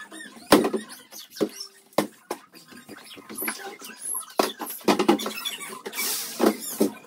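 Plywood panel and foam floor mats being handled and fitted together: irregular knocks and clicks of wood, with short squeaks of foam rubbing and a rougher scraping burst about six seconds in.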